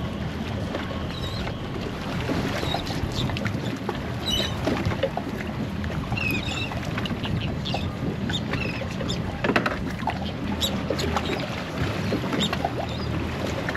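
Water lapping and slapping against the hull of a drifting fiberglass center-console boat under a faint steady low hum. Scattered light knocks and a few brief high squeaks come through.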